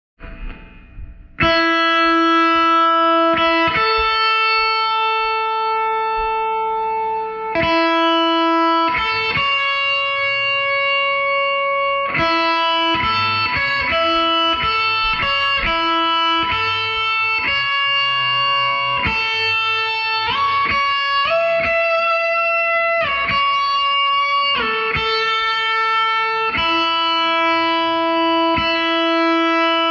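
Instrumental music: a slow guitar melody of long held notes, starting quietly and coming in fully after about a second and a half.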